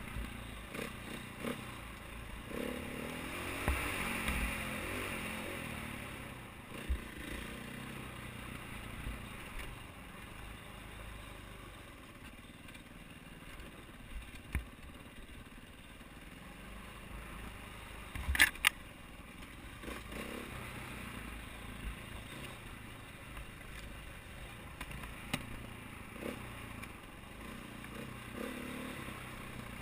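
KTM 450 XC-W dirt bike's four-stroke single-cylinder engine running while riding, its note rising and falling with the throttle. Knocks and rattles from the bike over the rough trail, with one sharp clack about eighteen seconds in.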